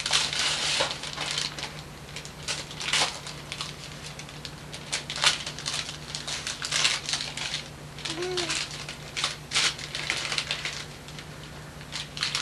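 Wrapping paper and tissue paper rustling and crinkling in irregular bursts as a present is unwrapped and handled, over a steady low hum.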